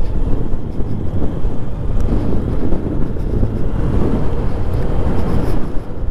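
A motorcycle riding along at steady speed, with wind buffeting the microphone in a loud low rumble over the engine.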